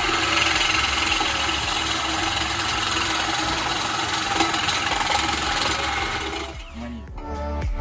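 A power tool running steadily with a dense hiss, stopping about six and a half seconds in. Background music with a beat starts near the end.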